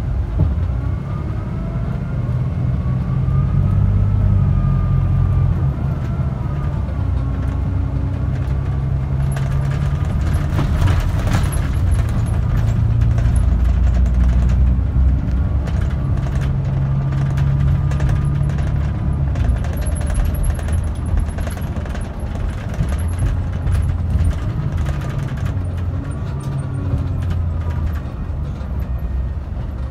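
Onboard a BCI Classmaster 57 bus under way: a low engine drone, with a whine from the Allison automatic transmission that rises and falls several times. Road noise and scattered rattling clicks run underneath.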